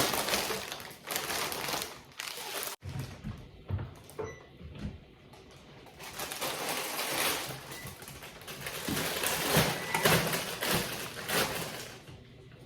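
Rustling and knocking of grocery items being handled and unpacked, coming in irregular bursts, with an abrupt cut about three seconds in.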